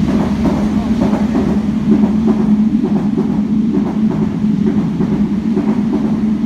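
Container freight train rolling past at close range: a steady, loud noise of wagons on the rails with a low, steady hum under it.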